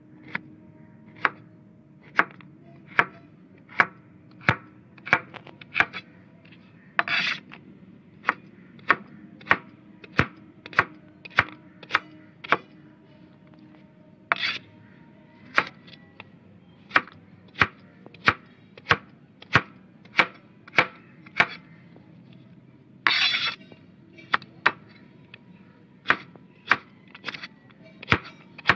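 Knife chopping raw green mango into small pieces on a cutting board: sharp knocks of the blade through the fruit onto the board, about one a second, with three longer, noisier strokes among them.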